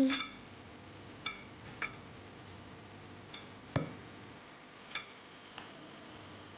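Scattered light clinks of a kitchen bowl and utensil being handled while chicken is coated in flour mix, about six short ringing taps with one duller knock near the middle.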